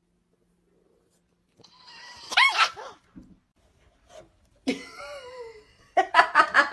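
A dog barks and whines: a short, sharp bark about two and a half seconds in, then a wavering, falling whine around five seconds.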